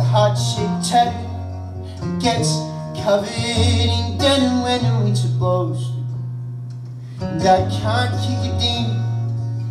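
Solo acoustic guitar playing, with low bass notes held under higher melody notes that change every second or so.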